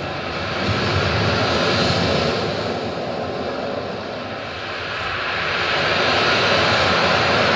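A recorded soundscape on the performance soundtrack: a steady rushing roar without a tune, swelling about a second in, easing off in the middle, and swelling again near the end.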